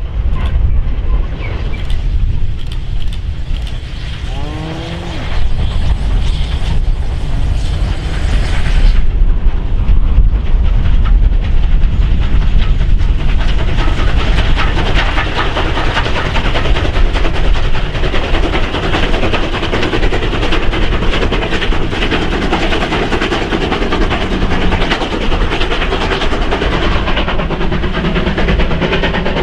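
South African Class 19D steam locomotive working a passenger train past, with a steady rumble that thickens into a dense clatter of exhaust and running gear, loudest from about halfway through.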